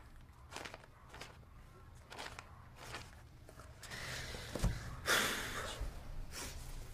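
Soft paper rustling and a few light taps as pages are handled at a desk, with a louder rustle of paper about five seconds in.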